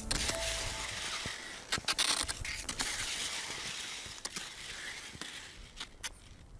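Wooden skis scraping and sliding over the lake's ice and crusted snow, with a hiss that thins out toward the end. Sharp clicks scattered through it, the loudest around two seconds in, are ski pole tips striking the ice.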